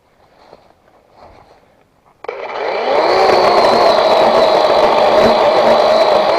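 A small engine starts up about two seconds in, rises quickly in pitch and then runs steady and loud at high speed. Before it, faint footsteps and rustling.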